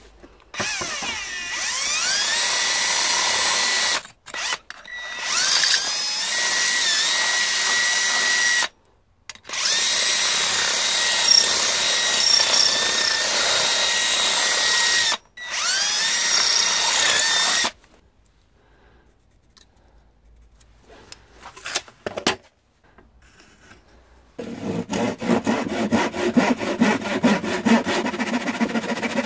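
Cordless drill boring holes through a steel machete tang: several runs of a steady whine, each rising in pitch as the drill spins up and stopping between holes. After a quiet stretch, a handsaw cuts wood in quick, even strokes near the end.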